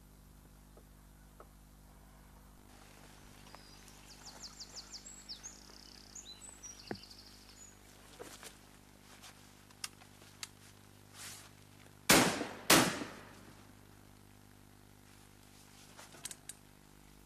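Two loud shotgun shots about half a second apart, each trailing off in a short echo. They are preceded by birds chirping in quick trills and a scattering of small knocks.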